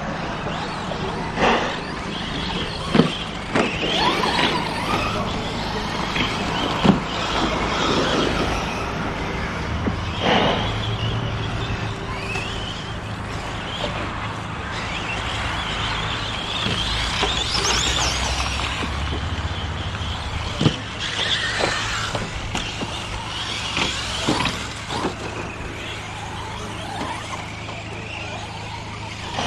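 Electric 1/10 4WD RC short-course trucks racing on a dirt track: brushless motors whining, rising and falling in pitch as the trucks accelerate and brake, with tyres scrabbling on dirt. Several sharp knocks are spread through it, the loudest about 3 s, 7 s and 21 s in.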